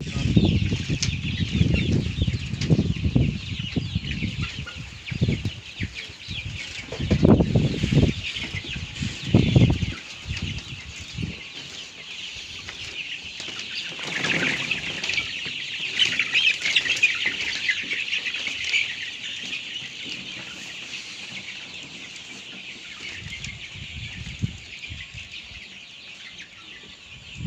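A crowded flock of young desi chickens and Indian Runner ducklings calling all at once, a dense, high-pitched peeping and clucking chatter. Heavy low thumps and rustles sound through the first ten seconds.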